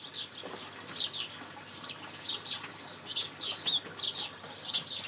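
Starlings calling: a steady run of short, sharp, down-slurred chirps, about three a second.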